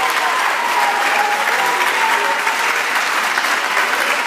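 An audience applauding, a dense and steady patter of many people clapping.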